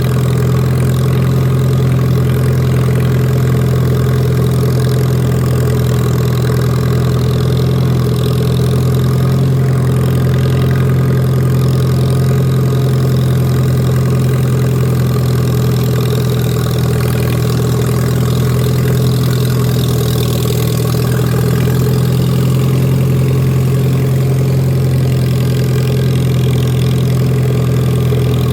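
Lawn mower engine running steadily at a constant speed while cutting grass.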